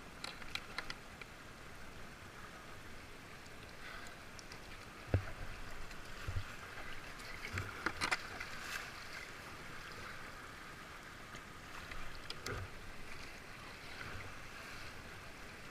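Whitewater river rushing steadily around a kayak, with a few short splashes from paddle strokes.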